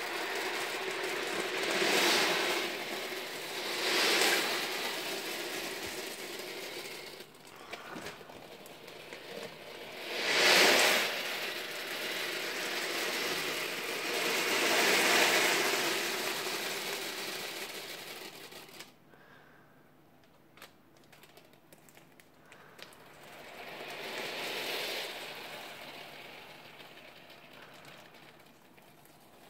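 Nearly 3000 steel ball bearings, 8 mm across, rolling and clattering against each other across a board as they settle into a packed lattice. The rattling comes in several swells, with a quieter spell of scattered single clicks a little past the middle, and a last swell later on.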